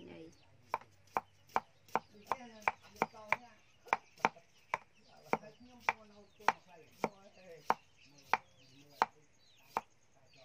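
Kitchen knife slicing a peeled root on a round wooden chopping block: about twenty sharp knocks of the blade on the wood, quicker at first and slowing toward the end.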